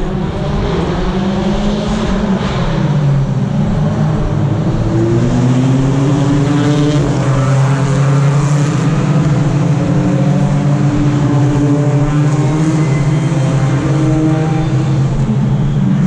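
Several BTCC touring cars' turbocharged 2-litre four-cylinder engines racing on the circuit at once. Their pitch rises under acceleration and drops as they change gear and brake.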